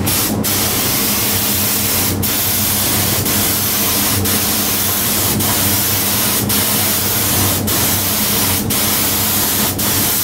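Conventional siphon-feed compressed-air spray gun spraying latex-style paint: a loud, steady hiss of air and atomised paint, broken by short dips about once a second.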